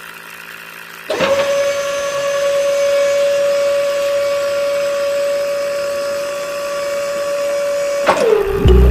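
Small electric motor switched on about a second in, running at a steady high speed with a constant whine, then slowing down near the end as the pitch drops.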